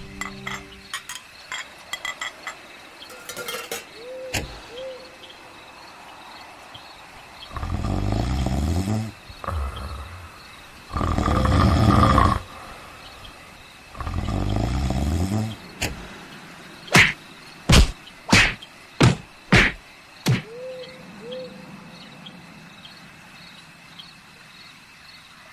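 Three long, loud snores a few seconds apart, followed by a run of five sharp knocks. Scattered faint clicks and short chirping tones sit around them.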